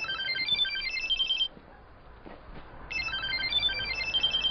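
Mobile phone ringtone signalling an incoming call: a short melody of quick, high electronic notes, played once and then starting again about three seconds in.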